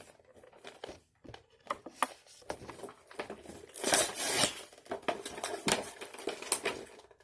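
Action figure packaging being opened by hand: cardboard and plastic crinkling, rustling and tearing in irregular bursts, with a longer, louder rustle about four seconds in.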